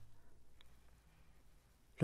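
Near silence: faint room tone with a low hum and one tiny click about half a second in.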